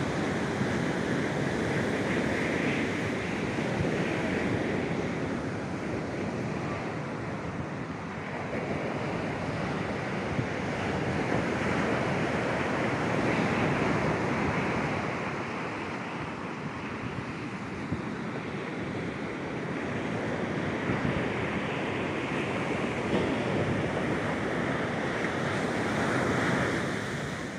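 Ocean surf breaking on a sandy beach, a steady rush that slowly swells and eases, with wind buffeting the microphone.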